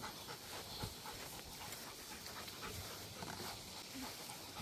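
Male Rottweiler panting faintly.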